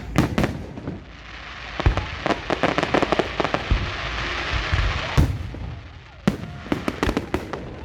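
Fireworks display: a dense run of bangs and crackling shell bursts, with a big bang about five seconds in, a short lull, then more bangs.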